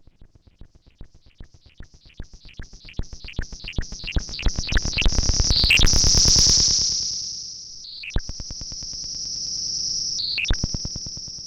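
Sound of Shadows PT2399 digital delay module in a modular synth: a run of clicks repeating faster and louder, giving way about halfway through to a loud, steady high-pitched whine that dips once and returns, with a few sharp pops.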